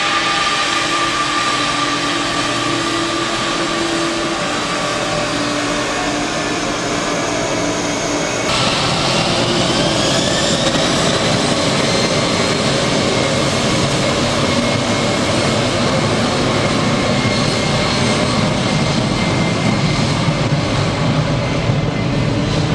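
Boeing 767 twin jet engines whining at low power. About a third of the way through, the sound changes sharply and the whine rises as the engines spool up to take-off thrust. The engines then run loud and steady through the take-off roll.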